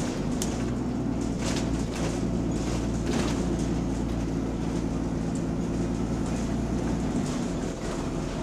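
Diesel bus engine running steadily under way, with the low drone of a leaking exhaust and a few short rattles in the first three seconds.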